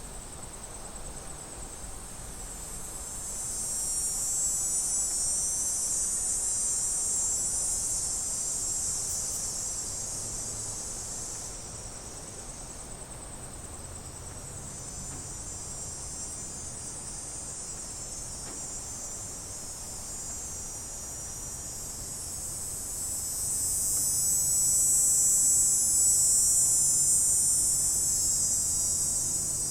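Cicadas buzzing in a steady, high-pitched chorus that swells louder twice, a few seconds in and again after about twenty-three seconds.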